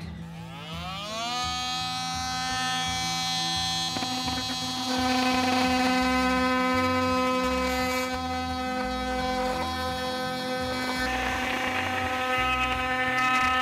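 Cordless Milwaukee oscillating multi-tool speeding up over the first second, then buzzing steadily at one pitch as its blade cuts through a cork floor tile. The sound grows rougher and noisier near the end.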